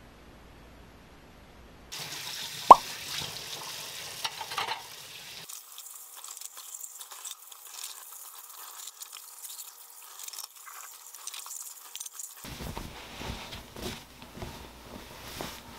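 Water running from a kitchen tap as dishes are washed by hand, with clinks of dishware and one sharp clink about three seconds in. Near the end comes the rustle of a sweatshirt being pulled on.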